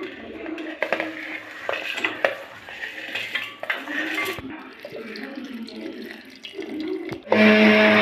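Metal kitchen utensils and dishes clinking and knocking as food is handled, with some water. Near the end comes a much louder burst with a steady low hum, lasting about a second.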